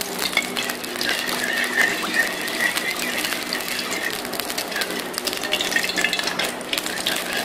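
Steel ladle stirring melting ghee around a steel karahi, with many light scrapes and clicks of metal against the pan over a steady low hum.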